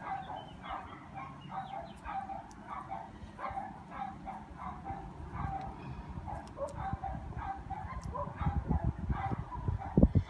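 Short animal calls repeating about twice a second. A low rumble builds near the end, with a single thump, the loudest sound, just before the end.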